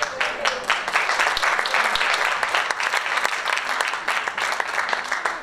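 Audience applauding, many hands clapping at once, tapering off near the end.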